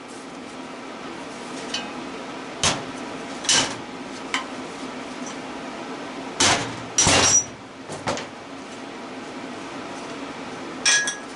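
Hammer striking metal while knocking apart a scrap electric motor: about seven sharp blows at uneven intervals, some with a short metallic ring.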